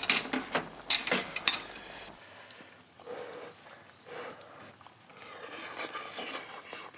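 Metal ladle and utensils clinking against a ceramic bowl and a pot as hot pot is served: a quick run of sharp clinks in the first second and a half. Softer clatter of chopsticks and spoon follows as the food is eaten.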